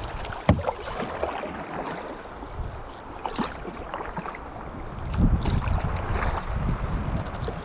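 Kayak paddle strokes splashing in river water, with water washing along the hull. A sharp knock about half a second in, and a low rumble from about five seconds in.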